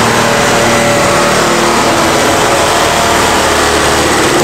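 Reciprocating saw running steadily as it cuts through a wooden floor joist. The blade is not pinching, which here means the board carries little load.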